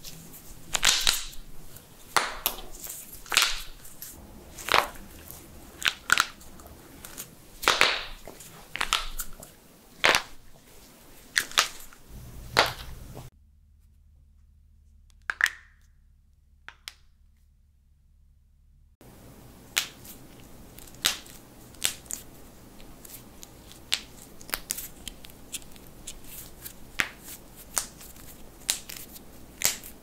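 Knuckles cracking: a run of sharp pops and crackles, about one a second. Then comes a few seconds of near quiet holding only a couple of small pops, and after it a second, quieter run of cracks.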